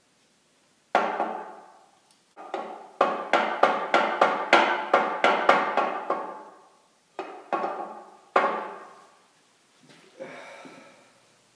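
Sharp metallic knocks on the cast-iron lathe motor-drive housing, each ringing briefly: a single knock about a second in, then a quick run of about three knocks a second, then a few spaced-out knocks and a softer one near the end.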